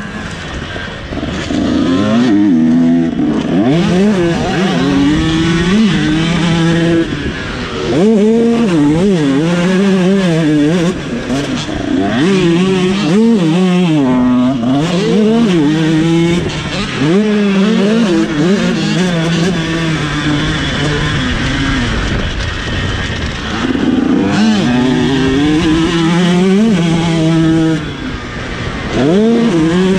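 Two-stroke 85cc minicross motocross bike engine, heard from onboard, revving up and dropping back over and over as it accelerates, shifts and backs off around the dirt track.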